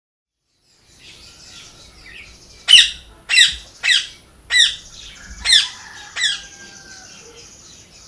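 Green parakeet giving six loud, harsh squawks about half a second to a second apart, each falling in pitch.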